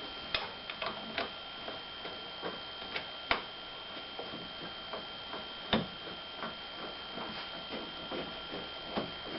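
Scattered light metallic clicks and taps at irregular intervals as hood bolts are handled and started loosely into the hood hinges, over a steady faint background hum with a thin high whine.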